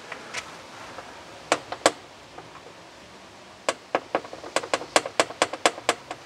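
Metal ring knocker rapped against a studded metal door: three quick knocks about a second and a half in, one more a couple of seconds later, then a fast run of about a dozen raps, four or five a second.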